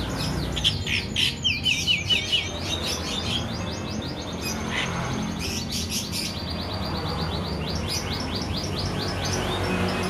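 Male sooty-headed bulbul singing a fast run of short, repeated down-slurred chirps, with a louder burst of notes in the first couple of seconds. Its song is stuffed with imitations of other birds' calls.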